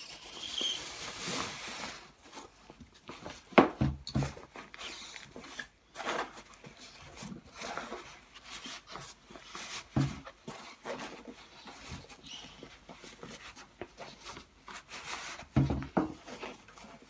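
Carrycot fabric rustling and its sewn-in plastic insert scraping along the groove of a Bugaboo Fox stroller frame as it is pulled around by hand. A few sharp knocks stand out, about three and a half seconds in, around ten seconds and near the end.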